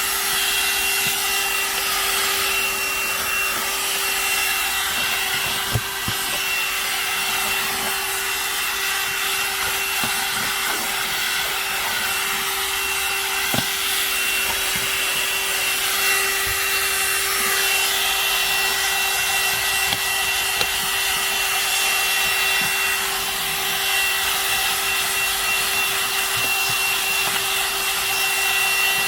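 VacLife VL189 cordless handheld vacuum running steadily with a constant motor hum and a high whine over a rushing hiss, with a couple of small knocks.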